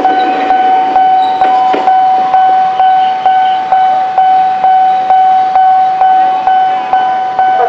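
Electronic railroad level-crossing bell ringing steadily, a bit over two dings a second. It is the loudest sound throughout. For about the first two seconds it rings over the rumble and wheel clacks of an electric commuter train, a former Tokyo Metro 6000 series set, passing close by.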